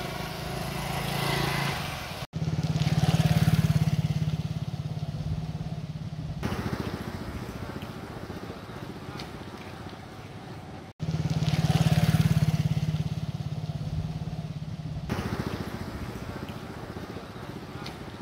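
Motorcycle engine running close to the microphone, a steady low drone with fast even pulses. It cuts off abruptly twice and comes back loud each time, then eases down over several seconds.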